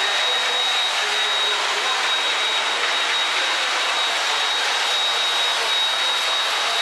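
Cromoman 70 web offset printing press running in production: a loud, steady machine rush with a thin, constant high-pitched whine.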